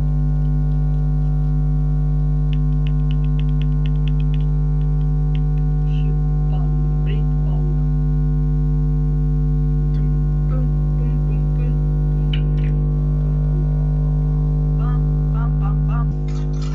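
Loud, steady electrical hum with its overtones, unchanging throughout. Faint scattered clicks sit over it, with a quick run of small ticks about three seconds in.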